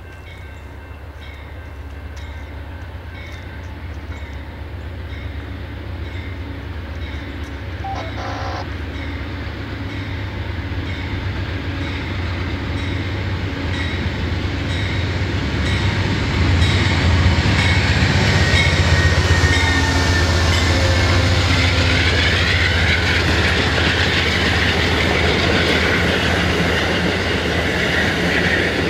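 Amtrak passenger train with a diesel locomotive approaching and passing close by, its drone building steadily over the first sixteen seconds or so, then staying loud as the cars roll past with wheels clicking over the rail joints. A grade-crossing bell dings at a steady beat through the first half.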